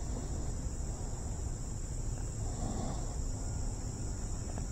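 Steady high-pitched insect chorus, a continuous even trill, over a low rumble.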